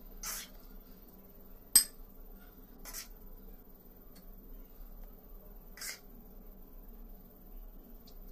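Metal spoon clinking and scraping against a glass bowl as thick custard is spread over fried vermicelli: a handful of separate clinks, the sharpest about two seconds in.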